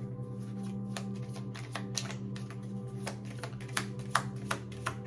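Tarot cards being shuffled and handled: a quick, irregular run of crisp clicks and snaps, several a second, a couple louder about four seconds in, over soft background music with a steady low drone.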